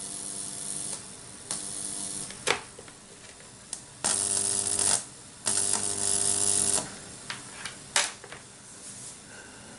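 Speakers driven by a TPA3116D2 class-D amplifier module giving a steady buzz, broken by several loud bursts of fizzing hiss and a few sharp pops, as the amplifier's ground is clipped to mains ground. This is ground and noise trouble, which the owner puts down to the whole amplifier being unstable.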